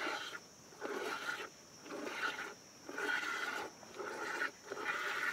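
Jets of milk squirting by hand from a cow's teats into a plastic jerrycan, a short hissing spurt about once a second.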